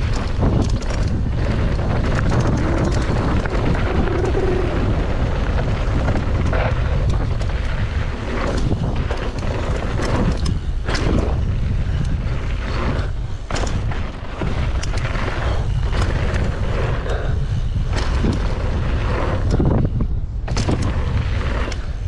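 Wind buffeting the microphone as a mountain bike runs fast downhill on a dry dirt trail, with tyre noise on the dirt and frequent sharp knocks and rattles from the bike over bumps and rocks.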